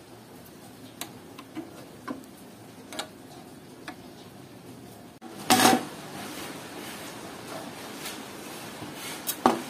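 Small metallic clicks of an open-end wrench working the hex nuts on a hand saw's handle bolts. A louder clatter comes about halfway through and another near the end as the saw is handled and laid on the wooden workbench.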